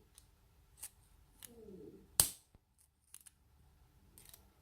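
Metal tweezers clicking and tapping on a small lock pin as it is gripped and lifted out, with a few faint ticks and one sharp click about two seconds in.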